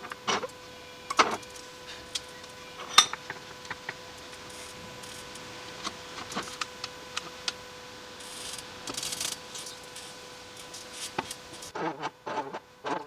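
Wood and hand tools being handled on a workbench: scattered sharp knocks and rubbing, the loudest clack about three seconds in and a quick cluster near the end, under a faint steady hum.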